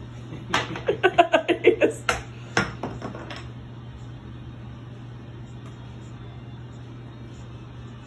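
Wooden juggling blocks clacking as they are caught and knock together: a quick run of about a dozen sharp knocks, starting about half a second in and ending a little over three seconds in. A steady low hum sits underneath throughout.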